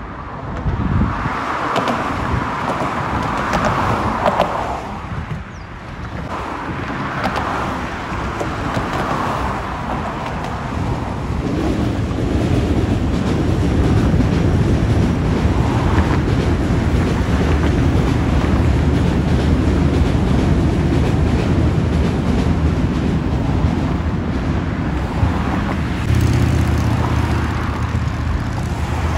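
Road traffic passing close by on a bridge, mixed with an Osaka Metro Midosuji Line train running on the tracks alongside, with wind on the microphone. The noise gets louder and deeper from about halfway through.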